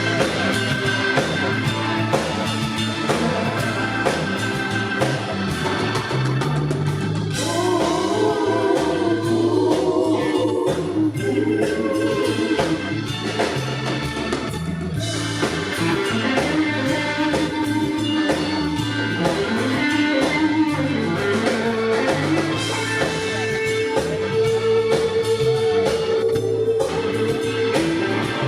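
Live blues-rock band playing an instrumental passage: an electric guitar line over drum kit and bass.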